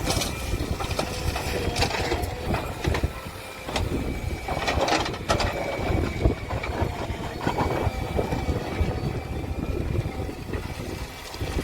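Diesel engine of heavy machinery running, with gusts of wind buffeting the microphone.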